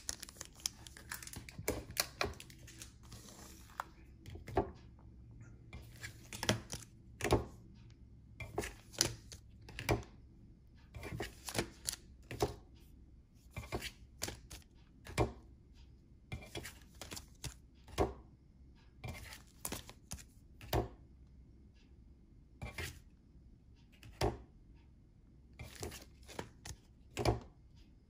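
Cardboard trading cards being handled and flipped through by hand: a run of irregular light clicks and taps, about one or two a second, with short gaps.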